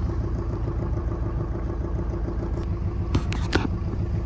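Small sailing yacht's diesel engine running steadily under way, a low even rumble with a constant hum. A quick cluster of sharp clicks sounds about three seconds in.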